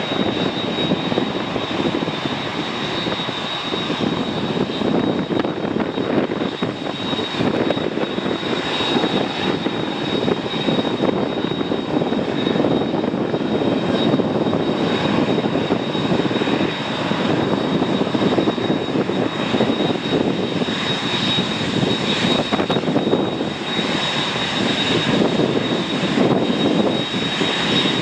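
Emirates Airbus A380's four jet engines running steadily at low power while the aircraft taxis: an even rumble with a steady high whine on top.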